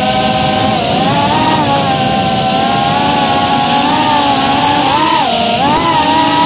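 FPV quadcopter's electric motors and propellers whining continuously, the pitch wavering with throttle, dipping briefly about five seconds in and then climbing back up.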